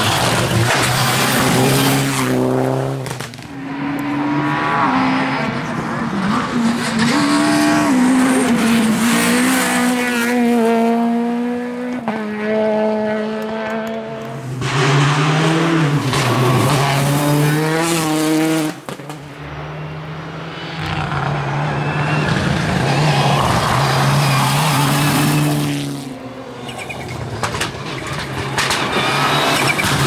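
Rally cars, among them Mitsubishi Lancer Evolutions and a Peugeot 208 R5, passing one after another at full throttle, engines revving hard, the pitch climbing through each gear and dropping at each shift.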